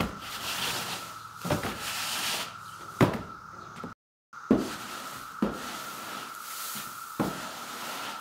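Push broom sweeping loose hay across a wooden plank floor, with a knock of the broom head on the boards and a brushing scrape at each stroke, roughly every one and a half to two seconds. A steady high tone runs underneath, and the sound drops out completely for a moment about four seconds in.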